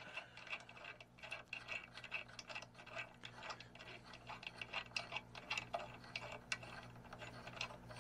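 Light, irregular metallic clicks and taps of small steel parts being handled: nuts, washers and a flat spring-cap plate set down over the kingpin studs on a Dana 60 steering knuckle.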